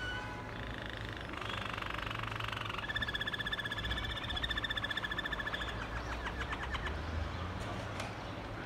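Waterslager (Malinois) song canary singing. It gives a fast trill, then rapid pulsed phrases on two pitches, and ends about seven seconds in with a slower run of separate notes.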